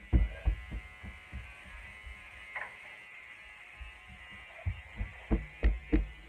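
Soft low thuds at about a walking pace, likely footsteps, over a steady faint buzzing hum; the thuds get louder near the end.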